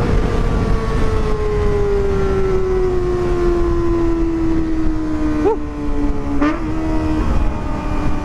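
Kawasaki ZX-25RR's inline-four engine through a Pro Liner aftermarket exhaust, spinning at high revs with a high-pitched wail. The revs fall steadily for about five seconds, then level off, with a short blip about six and a half seconds in, over wind rush.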